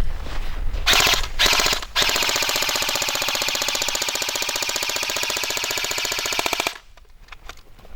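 Airsoft electric gun firing on full auto: a couple of short bursts, then one long burst of a few seconds with an even, very fast rate of fire that stops abruptly near the end.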